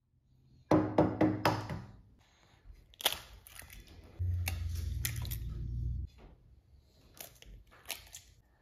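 Eggs knocked against the rim of a stainless steel mixing bowl and cracked open by hand: a quick run of four or five knocks about a second in, a single knock a little later, and a few more near the end. A low hum runs for about two seconds in the middle.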